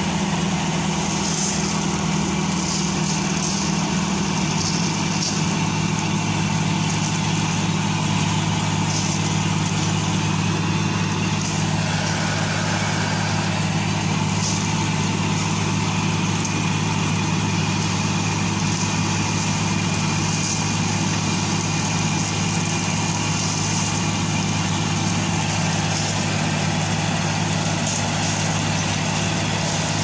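A heavy engine running steadily; its note drops a little about four seconds in.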